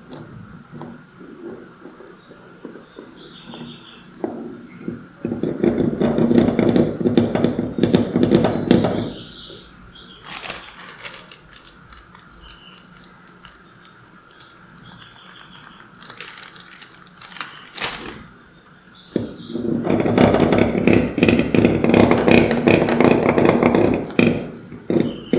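Kitchen food preparation: two long bouts of rapid, repeated scraping strokes, about four seconds each, one early and one near the end, with lighter handling noises between and faint bird chirps.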